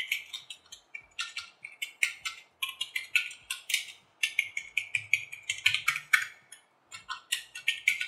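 Fast typing on a Cosmic Byte CB-GK05 membrane gaming keyboard with ABS keycaps: a rapid run of light, sharp key clicks, broken by two brief pauses, one about halfway and one about three-quarters of the way through.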